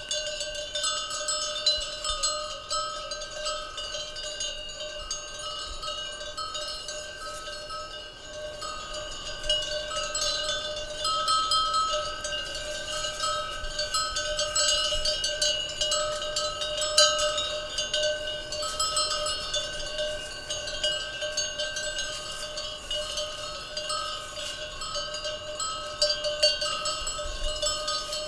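Many cowbells on grazing cattle clanking and ringing irregularly, overlapping with one another into a continuous jangle.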